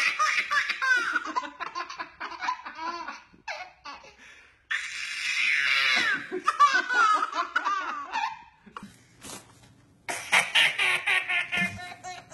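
A baby laughing hard in repeated fits while an adult man laughs along. The laughter breaks off and starts again abruptly twice, about 5 and 10 seconds in.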